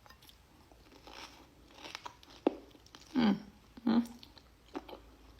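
A person chewing bites of plum with wet, crunchy mouth sounds, broken by short clicks and two louder bursts a little past the middle.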